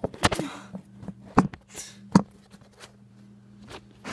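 Phone being handled close to its microphone: a run of sharp knocks and taps with brief rustling, the loudest knocks about a second and a half and two seconds in, over a steady low hum.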